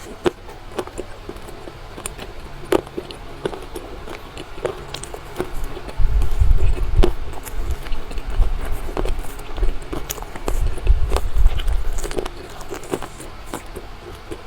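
Close-miked biting and chewing of a chocolate-coated turtle-shaped marshmallow: sharp crackly clicks throughout, with louder, heavier chewing in two stretches about six and eleven seconds in.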